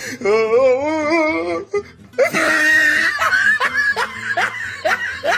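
Comic sound effects over a funny clip: a wavering, warbling pitched sound for about a second and a half, then a loud harsh burst about two seconds in, followed by repeated laughter.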